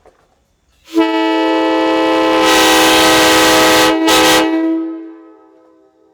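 PVC replica of a K5LA five-chime train horn, tuned to the early-90s K5LA chord, sounding one long blast of about three seconds. It gets louder and breathier partway through, breaks for a moment, gives a short second toot, then the chord dies away.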